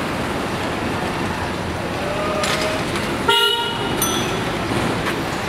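Steady street traffic noise, with a vehicle horn honking once, briefly, about three and a half seconds in.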